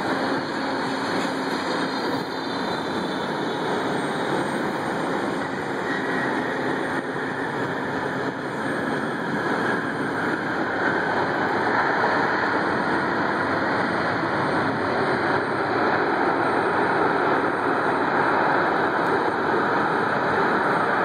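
Jet engine noise from a landing Boeing 777-200LR's GE90 engines heard across the airfield, a steady noise that grows louder in the second half.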